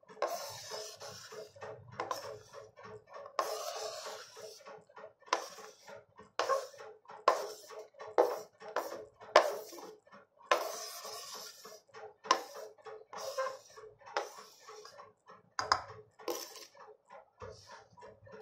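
Kitchen knife blade scraping chopped onion across a wooden cutting board and into a ceramic bowl: a run of short, irregular scrapes, about one or two a second, with the knife now and then clinking against the bowl.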